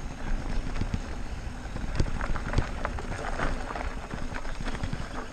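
E-mountain bike's tyres rolling over dry leaves and dirt singletrack, a constant crackling patter with scattered sharp clicks and knocks from the bike rattling over the ground.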